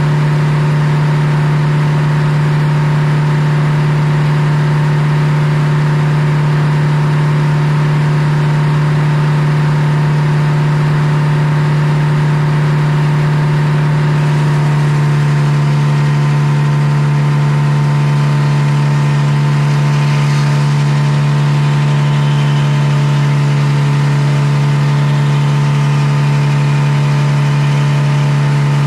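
Circular sawmill running under load as its large blade saws through a poplar log: a loud, steady hum from the mill and its drive. The tone shifts slightly about halfway through.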